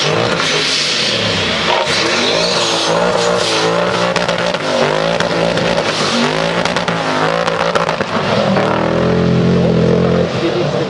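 Ford Mustang GT rally car's V8 engine revving hard, its pitch repeatedly climbing and dropping through gear changes and lifts, with tyre noise as the car slides through corners.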